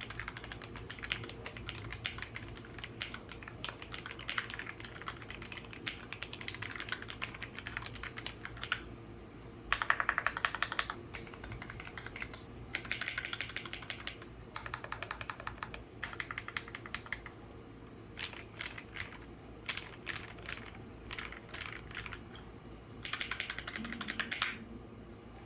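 Typing on a GMMK Pro mechanical keyboard with a PC plate, lubed and filmed Gateron Black Ink V2 linear switches and GMK keycaps. A steady run of typing gives way to short bursts of fast tapping, then single keystrokes at spaced intervals, and a final fast burst near the end.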